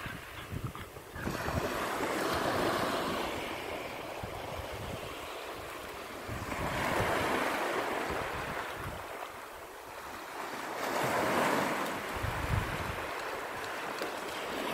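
Small sea waves breaking and washing up a sandy beach, the surf swelling and fading about three times, with gusts of wind rumbling on the microphone now and then.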